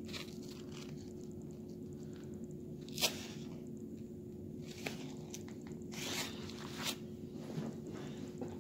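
Handling noises: a sharp click about three seconds in, then rustling around six to seven seconds in as a bag is rummaged through, over a steady low room hum.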